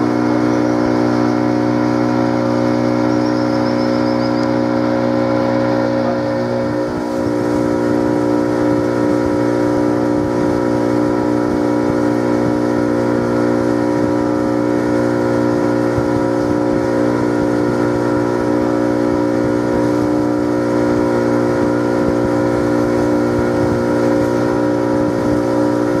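Boat motor running steadily at one even pitch, heard from on board the moving boat.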